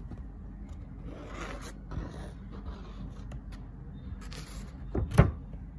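Handling noise: rubbing and scraping as things are moved about, then two quick knocks close together about five seconds in.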